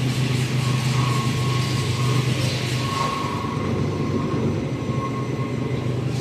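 CNC knife grinder running, its grinding head travelling along the bed with a steady low machine hum and a fainter whine that comes and goes.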